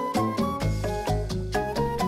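Background music with a steady beat, Latin-style with quickly changing notes.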